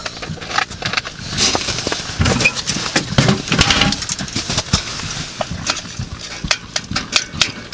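Rice porridge with a little oil added sizzling in a pan while a spoon stirs and scrapes it, with frequent clicks of the spoon against the pan.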